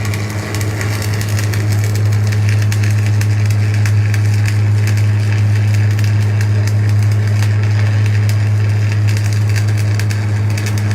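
Stick-welding arc crackling steadily during a vertical-up weld run, over the steady low hum of the arc welding machine.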